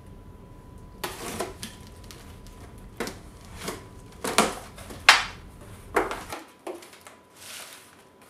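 Sheets of cardboard being handled and laid flat on a table: a run of irregular scrapes and rustles, the sharpest about five seconds in.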